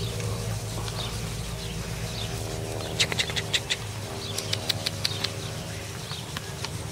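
Horse grazing, tearing and chewing grass: clusters of sharp crunching clicks about three seconds in and again a second later, over a steady low hum.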